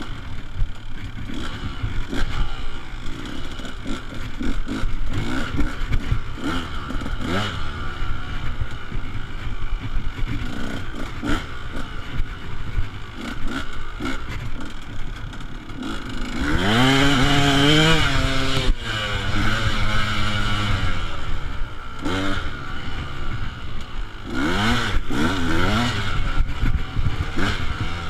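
Dirt bike engine heard from an on-board camera, revving up and down as it rides a small track, with a long rising rev a little past halfway and shorter revs near the end. Clattering and scraping run under the engine throughout.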